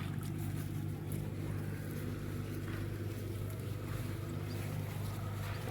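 A small engine running steadily at an even low hum.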